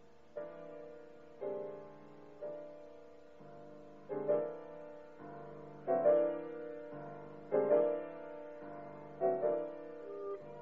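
Classical chamber music: piano chords struck about once a second or a little slower, each fading away, growing louder partway through, with a violin playing along.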